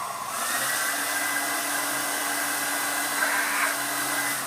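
Handheld hair dryer running, a steady rush of air with a thin motor whine, growing louder about half a second in and cut off near the end.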